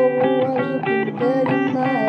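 Blues record playing: electric guitar picking quick notes with bent strings over a steady low line.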